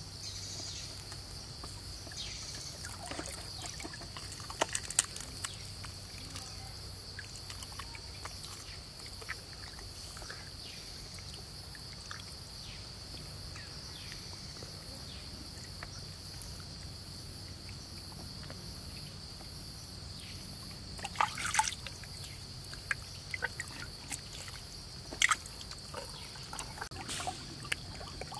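Wet sloshing, squelching and small splashes as a large fish is gutted by hand in shallow stream water, with a few sharper wet slaps, the loudest about two-thirds of the way through. Under it runs a steady high drone of insects.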